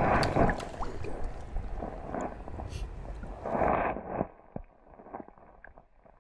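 River water sloshing and splashing in uneven surges, dropping away about four seconds in.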